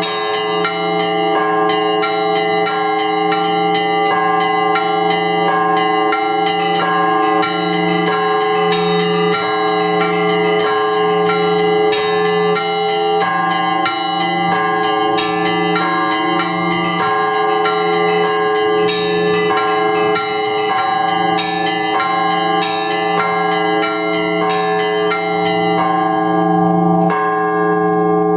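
Russian Orthodox church bells rung together by a bell ringer (zvon). Small bells are struck in a fast, dense rhythm over the steady, pulsing hum of larger bells. Near the end the fast strikes of the small bells thin out.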